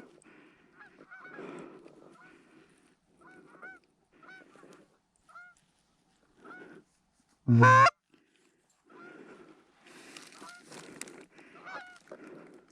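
Geese honking repeatedly, many short faint calls from a flock. About seven and a half seconds in comes one much louder, close honk that bends in pitch.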